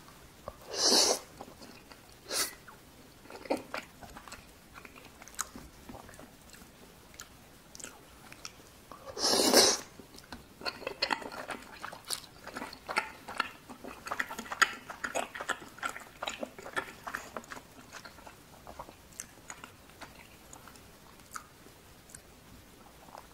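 Close-miked mouth sounds of eating cheese tteokbokki. There are two loud slurps of cheese-strung rice cakes, about a second in and about nine seconds in, followed by a long stretch of chewing with many small mouth clicks that thins out near the end.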